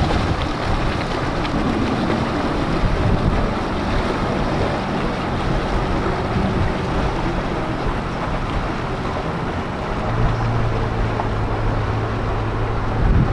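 Motorboat engine running on the water, a low steady drone that grows stronger about ten seconds in, with wind rushing on the microphone throughout.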